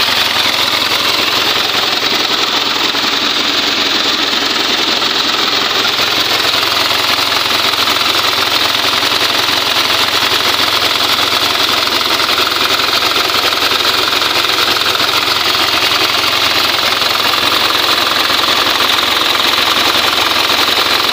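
Isuzu 4HF1 four-cylinder diesel engine idling steadily, freshly rebuilt with new piston rings to cure oil blow-by.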